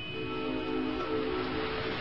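Slow ambient background music of held notes, over a steady hiss.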